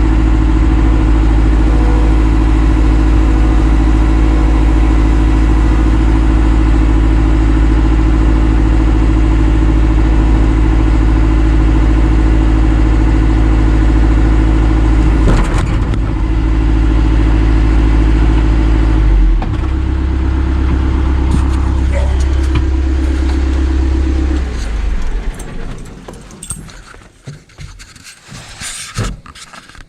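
A vehicle engine running steadily, its pitch shifting twice, then shut off about 24 seconds in, followed by a few light clicks and knocks.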